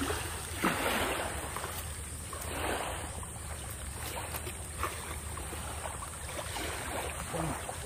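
Sea waves washing ashore, a steady rushing noise that swells and eases every couple of seconds.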